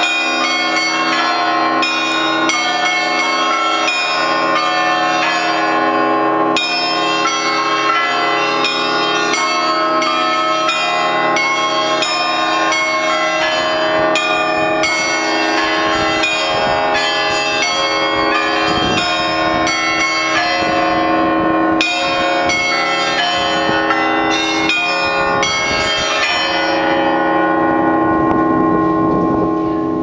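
Russian Orthodox church bells ringing a peal: quick repeated strikes of the smaller bells over the steady ringing of the larger bells. Near the end the quick strikes stop and the larger bells ring on.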